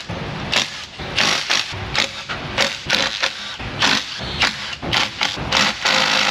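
A powered wrench firing in many short bursts, a few each second, as it works on tight oil pan Torx bolts.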